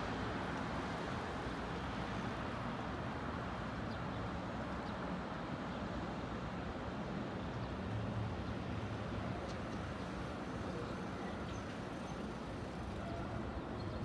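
Steady low rumble of road traffic, swelling a little about eight seconds in.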